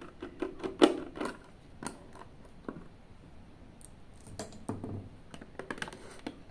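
A small screwdriver backing out the screw of a plastic multimeter's battery-and-fuse cover, then the plastic case being handled: a scatter of light clicks and scrapes, the sharpest about a second in.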